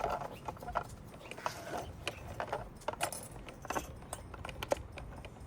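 Hard plastic parts of a skeleton cat decoration clicking, tapping and rattling as they are handled and fitted together, a run of irregular short clicks and knocks.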